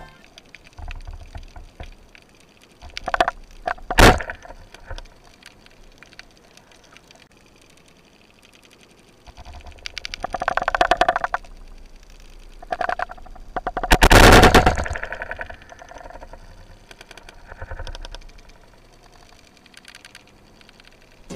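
Underwater sound of an 80 cm band-powered speargun firing: one sharp crack about four seconds in as the bands release. Later comes a louder rush of water noise lasting about a second, with scattered smaller bursts of water noise and knocks before and after it.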